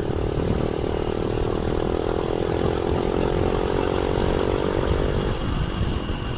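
Motorcycle engine running steadily while riding, with wind rumbling on the microphone; the engine note fades near the end as the throttle eases.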